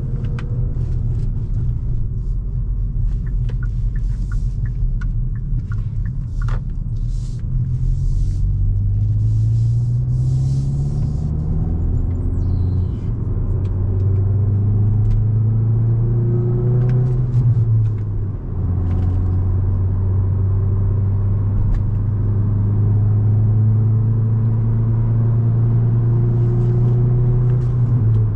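Hyundai i20 N's turbocharged 1.6-litre four-cylinder engine pulling under acceleration on the motorway, over steady road rumble. Its note rises twice, drops sharply at a gearshift about two-thirds of the way through, then holds steady at cruise.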